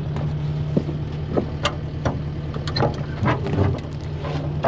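Engine idling steadily under a series of sharp metallic clanks and knocks as the dump trailer's rear gate latches are released and the doors swung open, with a loud clank near the end.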